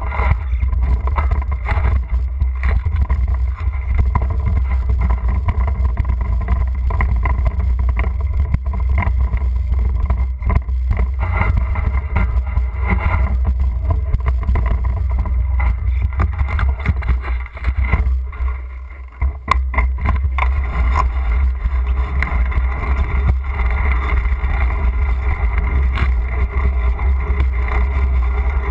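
Wind rumbling on a bike-mounted GoPro's microphone while the bicycle rides along, mixed with frequent knocks and rattles from the bike going over the road. The rumble eases briefly about two-thirds of the way through, then picks up again.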